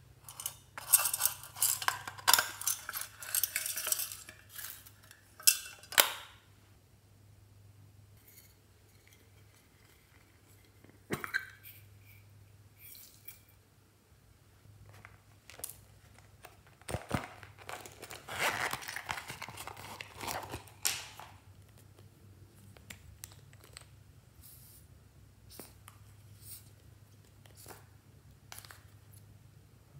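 Clinking and rattling of a tin box and small containers being handled and emptied over a glass baking dish. There is a burst of clatter for the first few seconds, another past the middle, and scattered light clicks between and after.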